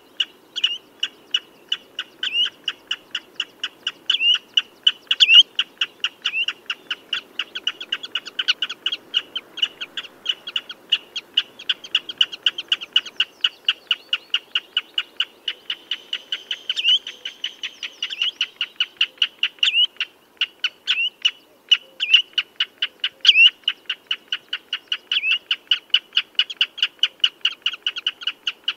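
Common redshank calling: a rapid, unbroken series of short, sharp piping notes, several a second.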